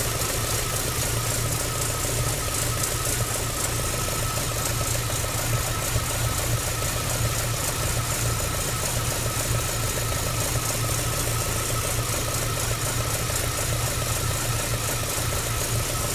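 MG ZR 105's 1.4-litre K-series four-cylinder engine idling steadily, with a fast even ticking and a thin steady whine over the low running note. It is the weird engine sound the owner hears every now and then, which remains after new spark plugs, HT leads and an alternator belt.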